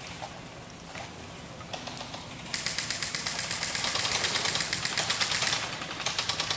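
Airsoft gun firing on full auto, a fast clatter of shots that starts about two and a half seconds in and runs for about three seconds.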